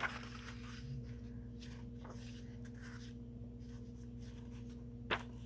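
Pages of a paperback book being turned by hand: soft paper swishes and rustles, with a sharper page flick about five seconds in. A faint steady hum sits underneath.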